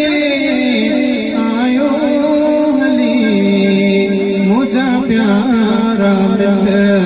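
Music with a voice singing long, held notes that glide and waver between pitches.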